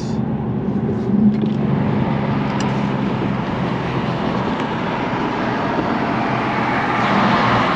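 Infiniti G37's 3.7-litre V6 running at a steady cruise, heard from inside the cabin with tyre and wind noise, growing a little louder near the end.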